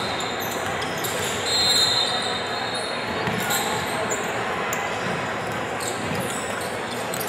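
Game sounds of an indoor basketball game: sneakers squeaking on the hardwood court, a longer squeak about a second and a half in, and the ball bouncing, over a steady hum of players' and spectators' voices.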